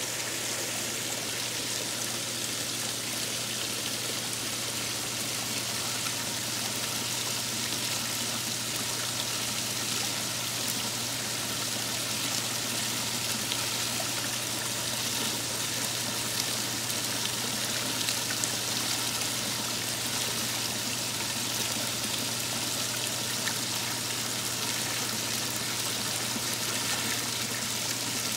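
Water spilling over the rim of a fountain trough in a thin sheet and splashing into the pool below, a steady rushing splash with a low steady hum underneath.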